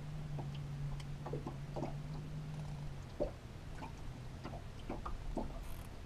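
Electric trolling motor holding the boat on spot-lock, humming steadily and easing off about three seconds in, with scattered light ticks and knocks.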